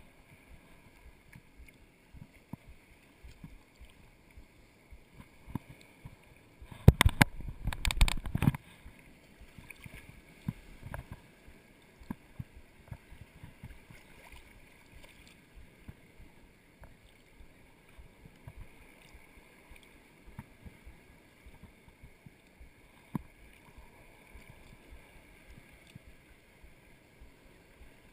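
Shallow sea water lapping and sloshing close to the microphone, with scattered faint ticks. About seven seconds in there is a louder burst of noise lasting about a second and a half.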